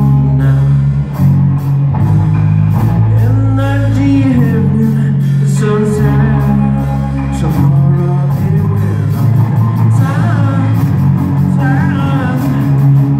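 Live rock band playing electric guitars, bass and drums, with a male singer's vocal line over the top.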